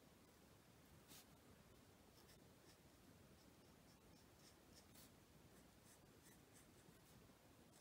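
Faint, irregular light scratching of a Stampin' Blends alcohol marker's tip stroking over cardstock while colouring in a stamped image.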